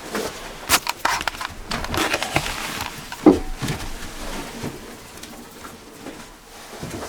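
Irregular rustling, scraping and light knocks from hunters shifting and handling gear inside a small hunting blind, with one louder knock about three seconds in.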